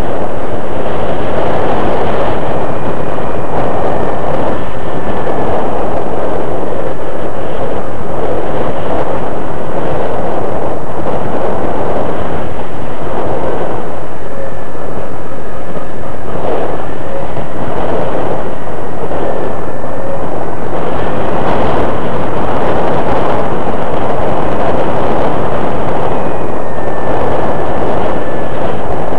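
Slow Flyer 1400 radio-controlled model airplane in powered flight, heard through its onboard camera's microphone: a loud, steady rush of wind and motor noise, with a faint whine that wavers slightly in pitch.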